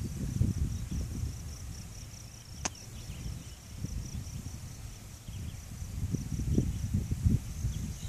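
Wind buffeting the microphone in uneven gusts of low rumble. Behind it an insect chirps steadily in high-pitched, evenly spaced pulses. One sharp click comes about two and a half seconds in.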